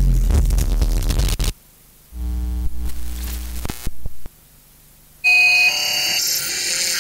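Synthesized electronic noise from an SN76477-based noise machine. A loud noise burst with a deep rumble cuts off abruptly about a second and a half in, followed by a low buzzing drone with a few clicks. From about five seconds in comes a harsh high-pitched buzz of electronic tones that step in pitch.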